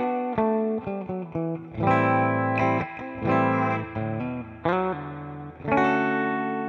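Photogenic Strat-style electric guitar with a ceramic hot rail bridge pickup, played through a clean amp tone: a run of picked single notes and chords, ending on a chord struck near the end and left to ring out.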